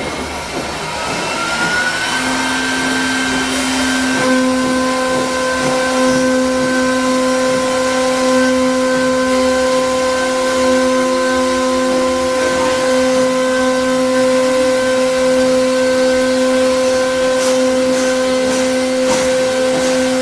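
3 kW air-cooled CNC router spindle spinning up, its whine rising over the first two seconds, then running steadily at speed. It is a high-pitched whine of several steady tones over a hiss of air.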